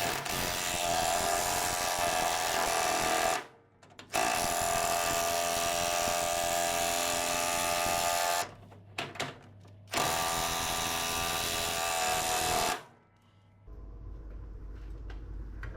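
Impact wrench hammering at full power, screwing a threaded ball joint into a control arm: three long runs of several seconds each with short stops between them and a couple of quick blips before the last. Its threads are coated with penetrating oil instead of grease, and the joint is going in.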